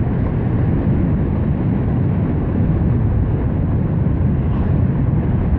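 Steady riding noise of a Honda Beat FI single-cylinder scooter on the move: wind rushing over the microphone with the engine running underneath.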